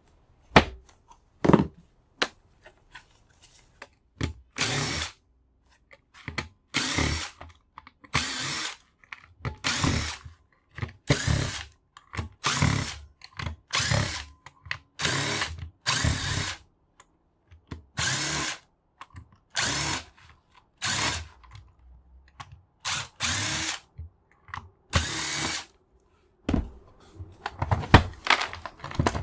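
Electric drill/driver run in repeated short bursts, each under a second to about a second long, backing screws out of a tool's housing during teardown. Clicks and clatter of handled parts come between the bursts, thicker near the end.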